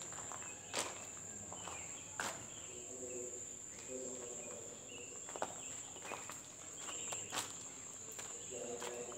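Insects trilling steadily on one high pitch, over a faint murmur of distant voices, with a few sharp clicks.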